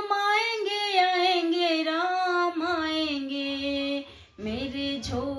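A woman singing a Hindi Ram bhajan, holding long, wavering notes without clear words. There is a short break a little after four seconds, then the singing comes back.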